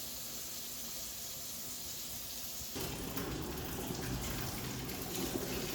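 Sink faucet opened about three seconds in after a faint steady hiss, water running out unevenly with air in the supply lines.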